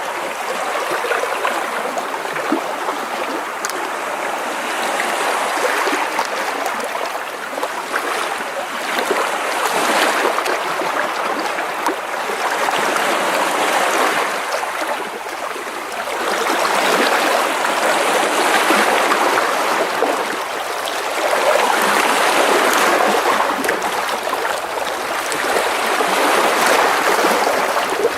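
Small sea waves splashing and washing against rocks close by, a continuous sloshing and trickling that swells and eases every few seconds.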